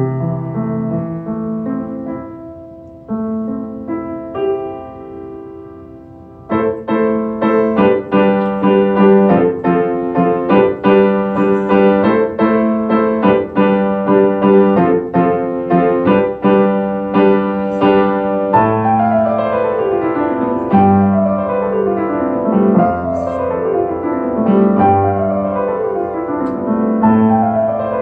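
Grand piano played solo. It starts soft and sparse, then about six seconds in comes in louder with fuller repeated chords, and in the second half it plays repeated falling runs of notes over low bass notes.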